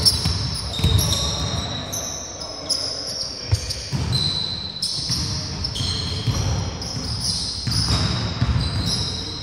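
A basketball bouncing on a wooden court, with many short, high squeaks of sneakers on the floor and occasional players' voices.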